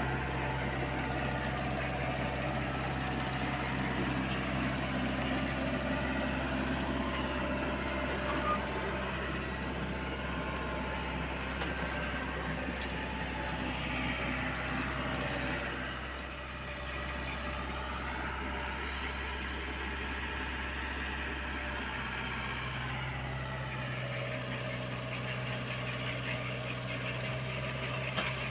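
Komatsu PC75UU mini excavator's diesel engine running steadily as the machine works. Its low drone fades for several seconds a little past the middle, then comes back.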